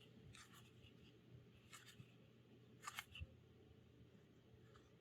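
Near silence: room tone with a few faint rustles and clicks of Magic: The Gathering cards being handled, the clearest about three seconds in.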